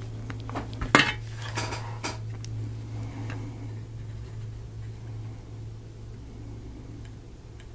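Small clicks and taps of kit parts and tools being handled on a tabletop, the sharpest about a second in, with a few more just after, over a steady low hum.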